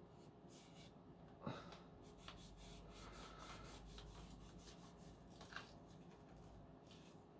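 Faint rubbing of a wet wipe on the plastic parts of a Dyson V10 vacuum, with a light knock about one and a half seconds in and a smaller one about five and a half seconds in.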